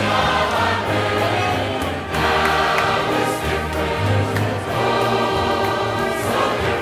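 Large church choir singing a gospel song, with instruments holding steady bass notes underneath that change every second or so.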